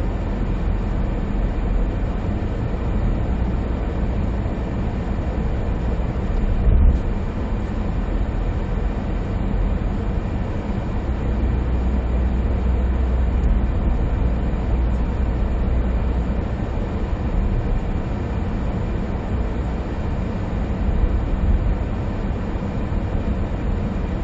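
Steady road and engine noise inside the cabin of a 2020 SsangYong Rexton Sports pickup cruising on a highway, its 2.2-litre diesel running at speed. One thump comes about seven seconds in.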